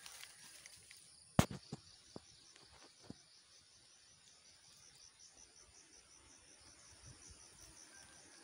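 Insects chirping outdoors in a steady high pulsing trill, about four pulses a second. A single sharp click about one and a half seconds in is the loudest sound, followed by a few fainter taps.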